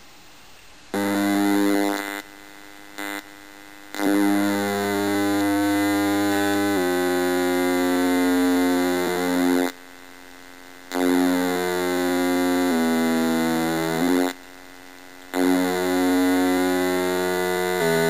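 Computer-generated sound effects from a program graphing the Riemann-Siegel Z(t) function: buzzy synthesized tones that step from one pitch to another every half second or so. They start about a second in and break off three times, briefly each.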